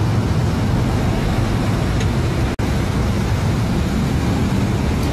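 Steady motor-vehicle engine and road noise, broken by a split-second dropout about two and a half seconds in.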